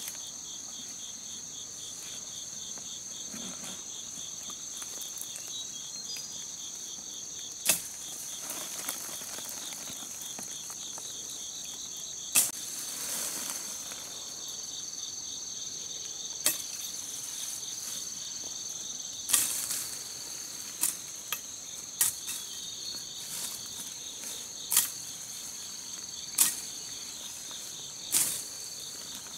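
Insects keep up a steady, high, pulsing drone, while branches are snapped in the undergrowth: about ten sharp cracks spaced a few seconds apart, with some rustling of leaves.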